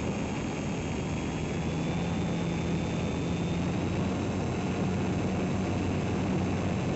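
EasyGlider model motor glider in flight: the small electric motor and propeller run with a steady hum over constant air rush, the hum strengthening slightly a couple of seconds in.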